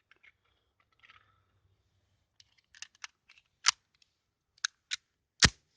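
Metallic clicks from handling a P.08 Luger pistol, then two much louder, very short sharp cracks nearly two seconds apart.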